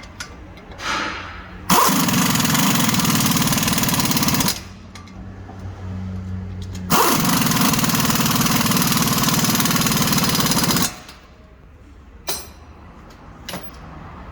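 Impact wrench hammering in two long runs, about three and four seconds each, tightening the strut-to-knuckle bolts back up.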